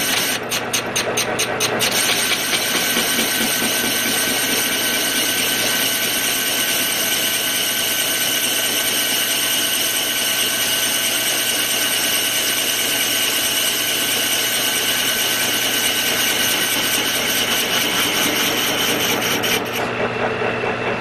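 Metal lathe running with a hand file held against a spinning cast locomotive wheel: a steady high scraping hiss over the machine's hum, with fast regular strokes in the first two seconds. The filing stops about a second before the end, leaving the lathe running on its own.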